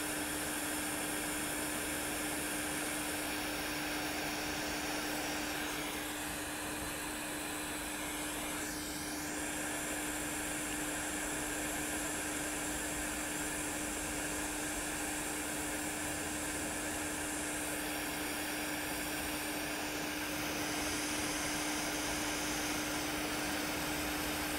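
Hot air rework gun blowing steadily onto a laptop motherboard, a constant rushing hiss with a steady hum under it, as solder is reflowed to refit inductor coils.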